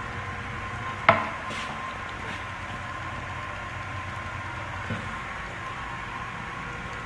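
Steady restroom background hum, broken by one sharp click about a second in and a fainter knock near five seconds; no flush is running.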